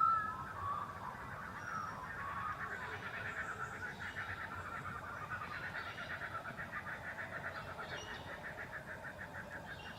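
Bush ambience with a long run of rapid, evenly pulsed animal calls, about six a second, starting a couple of seconds in. Fainter high calls sound over it, after a short louder call right at the start.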